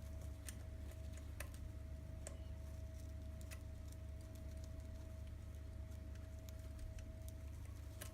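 A few faint scattered clicks and taps from hands handling a camera strap's buckle and straps, over a steady low hum.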